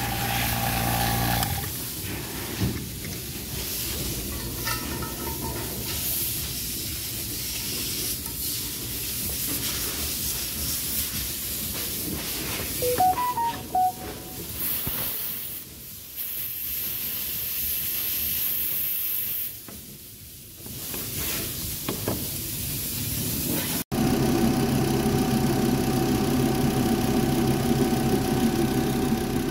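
Refrigerant gas hissing through the A/C manifold gauge hoses during a freon recharge, after a steady motor hum cuts off about a second in. Near the end it cuts abruptly to a car engine idling steadily.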